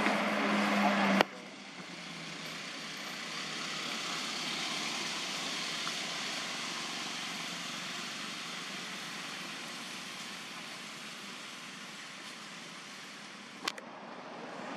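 Steady outdoor background hiss with no distinct events. A louder stretch with a low steady hum cuts off about a second in, and there is a single sharp click near the end.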